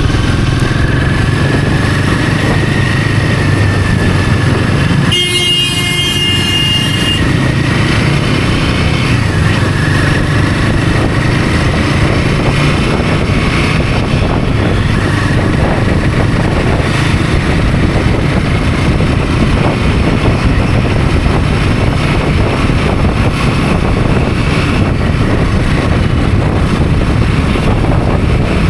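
Royal Enfield Himalayan 450's 452 cc single-cylinder engine running steadily under way, with road and wind noise. About five seconds in, a vehicle horn sounds for about two seconds.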